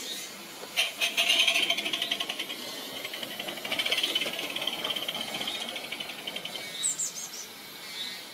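Cheddar Models Iver live-steam model locomotive running past on garden-railway track, its steam exhaust beating in a fast, even rhythm that swells twice as it goes by, then fades.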